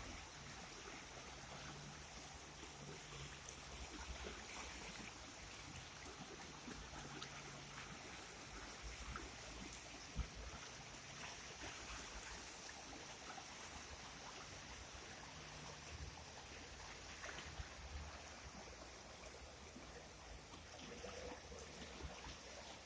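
Mountain river running: a faint, steady rush of flowing water, with a low rumble coming and going underneath and a single light click about ten seconds in.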